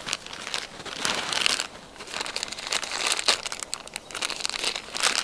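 Crinkling and rustling of a bag and its contents being handled, in a series of irregular rustles.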